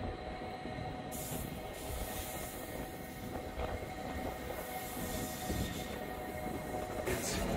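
Rhaetian Railway train running through a curve, with steel wheels squealing on the rails in steady high tones over the rumble of the carriage. Air rushes past the open window.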